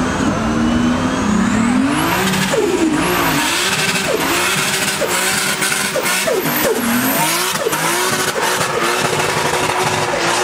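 A car doing a burnout: the engine revs up and drops back over and over while the spinning rear tyres squeal and hiss.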